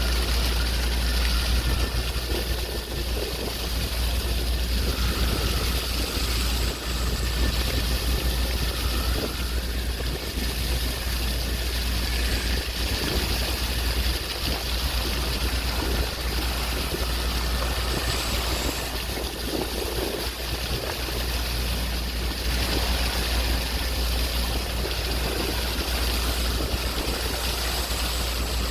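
Sea waves washing in a steady wash of noise, over a constant low rumble.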